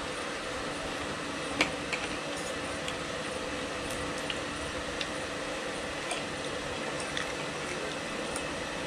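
Spoons and forks clinking against ceramic plates now and then while people eat, the loudest clink about one and a half seconds in, over a steady background hiss.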